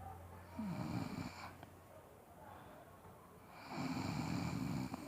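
A person snoring loudly, two snores about three seconds apart, the second longer than the first.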